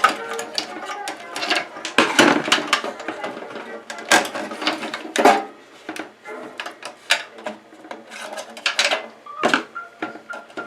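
Irregular clicks, knocks and rattles of parts being handled and pulled out of an old desktop computer case.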